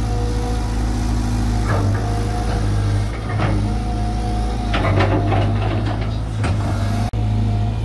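Caterpillar 320 GC excavator's diesel engine running steadily, with a steady whine over it and several short knocks and clanks as it works.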